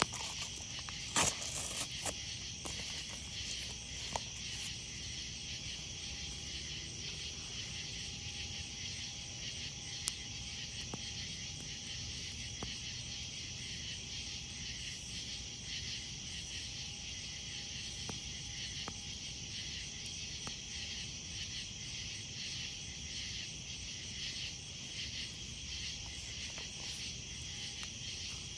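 A steady chorus of night insects chirping in a fast, even pulse, with scattered sharp pops and crackles from a campfire, the loudest about a second in.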